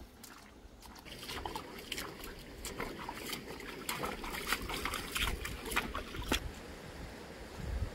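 Footsteps wading through a shallow, stony stream: a run of water splashes and sloshes around the legs, stopping about six and a half seconds in.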